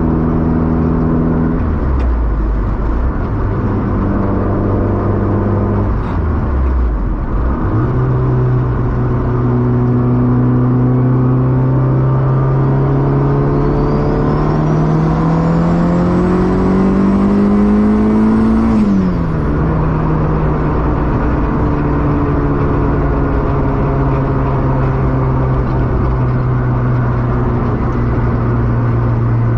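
Honda B18 four-cylinder engine heard from inside the hatchback's cabin while driving. The engine note drops about two seconds in, then climbs slowly for about ten seconds, falls sharply at a gear change past the halfway point, and runs on steadily.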